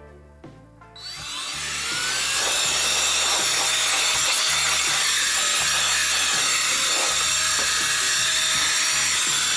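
ICANZUO TAD06 cordless air duster with its narrow nozzle switched on: about a second in, its motor spins up with a rising whine, then it blows a steady, loud rush of air.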